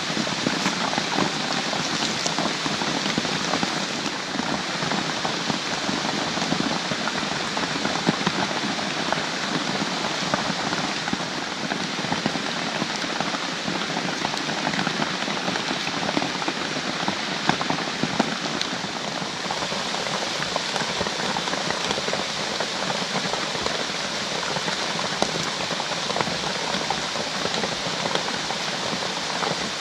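Steady rain, a dense even patter of drops with no letup.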